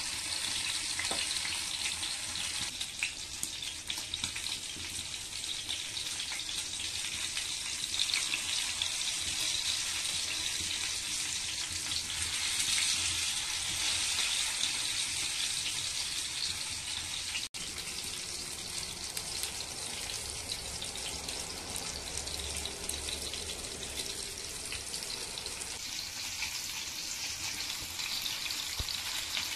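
Pomfret fish coated in red masala shallow-frying in hot oil in a cast-iron pan, a steady sizzle, with a momentary break a little past halfway.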